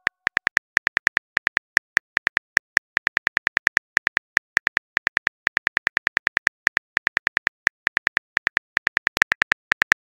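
Simulated phone keyboard clicks from a texting app's typing sound effect: rapid short ticks, about seven a second, in runs with brief pauses as a message is typed.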